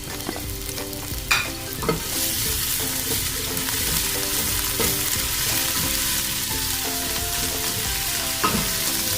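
Minced garlic and ginger sizzling in hot olive oil while being stirred in a pan, with a couple of utensil knocks about a second in; the sizzle grows louder about two seconds in.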